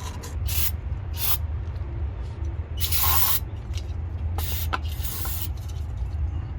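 Several short hissing spray bursts, the longest about three seconds in, over a steady low hum.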